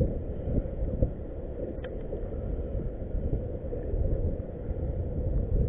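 Wind buffeting the microphone of a camera mounted on a kayak, a low rumbling rush, with one faint click about two seconds in.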